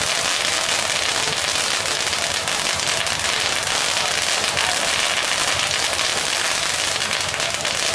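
Ground fireworks spraying sparks: a dense, steady crackle of many small rapid pops over a hiss, with no single big bang.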